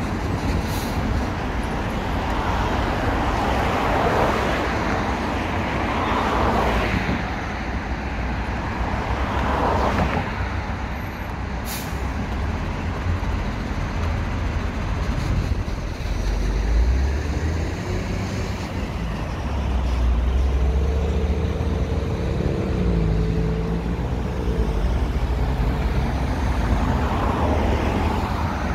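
Road traffic passing close by, with cars going past one after another. About two-thirds of the way through, the engine of a heavy vehicle drones for a few seconds.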